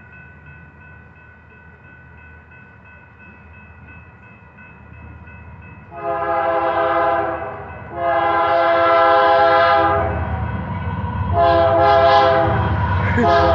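Grade-crossing signal bell ringing steadily. About six seconds in, the approaching locomotive's Nathan K3LA three-chime air horn sounds three long blasts, the start of a crossing sequence, with a fourth beginning near the end. The train's low rumble grows underneath as it nears.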